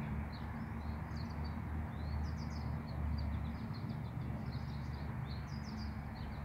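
Small birds chirping and trilling in short high phrases, over and under one another, with a steady low hum underneath.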